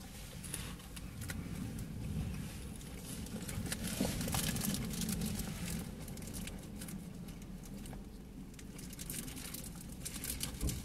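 A person chewing a mouthful of pizza with the mouth closed, giving faint soft clicks and smacks, over a low steady rumble inside a car.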